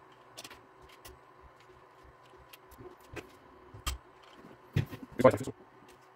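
Scattered clicks and knocks of a 3D-printed plastic end block being pushed onto the end of an aluminium extrusion with a steel linear rail. The part is a tight fit. The loudest knocks come near the end.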